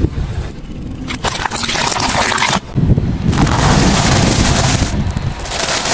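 Car tyre rolling over and crushing wafer ice-cream cones, a dense crunching crackle. After a short break, a second, louder and longer stretch of crunching follows as the tyre crushes another brittle pile.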